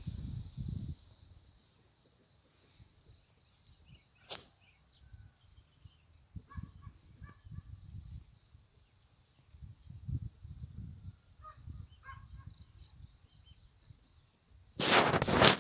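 Outdoor ambience: an insect trilling steadily in a high, pulsing chirp, with low gusts of wind on the microphone and a few short bird calls. Near the end comes a loud burst of rustling noise lasting about a second.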